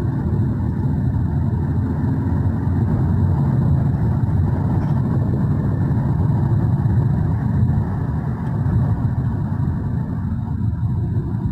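Steady rumble of a Jaguar XJL driving at motorway speed, heard from inside the cabin: tyre, road and engine noise.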